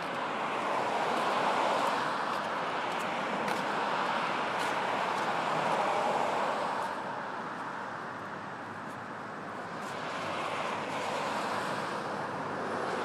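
Street traffic: cars passing one after another, their engine and tyre noise swelling and fading, with a lull about two-thirds of the way through.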